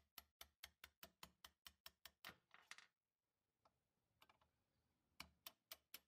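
Light, rapid hammer taps on a steel pin punch, driving a trigger guard pin out of a Charles Daly shotgun's receiver: an even run of about six or seven taps a second for two seconds, a pause, then a few more taps near the end.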